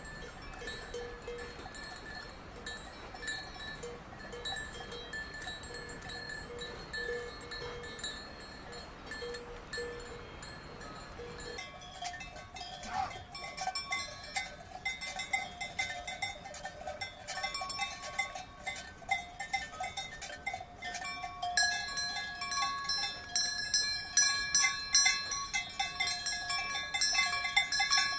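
Cowbells on grazing cows clanking irregularly as the cows move. About twelve seconds in, a bell with a different pitch takes over, and the ringing grows louder and busier near the end.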